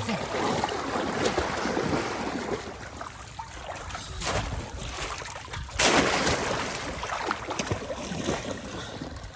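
Pond water splashing and sloshing as people wade and work fish traps, with sharper splashes about four and six seconds in.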